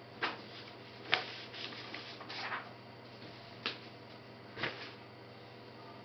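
Quiet room tone with a steady low hum, broken by a handful of short soft clicks and rustles, one of them a slightly longer rustle about two and a half seconds in.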